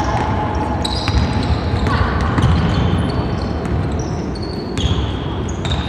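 Indoor basketball game on a hardwood court: many short, high-pitched sneaker squeaks and a few ball bounces over a steady low rumble of the hall, with voices in the background.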